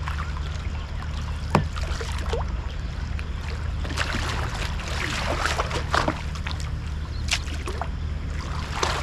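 Water sloshing and splashing around a capsized kayak during a roll attempt, heard through a camera half underwater, over a steady low rumble. Sharp splashes come about one and a half seconds in, several between four and six seconds, and again near the end.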